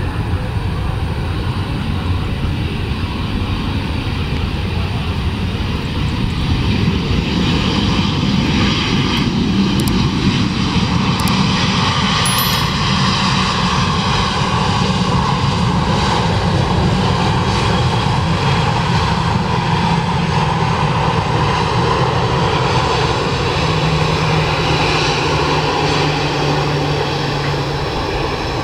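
Airliner engines passing close by: a loud, steady rush that swells about six seconds in and holds, with a tone that drops in pitch partway through.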